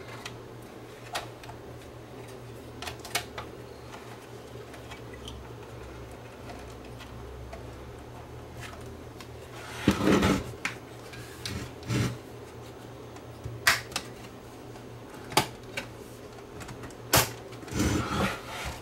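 Scattered clicks, knocks and rustles of a cassette deck's parts and wiring being handled and fitted into its metal chassis, with a louder clatter about ten seconds in and a few more knocks near the end, over a steady low hum.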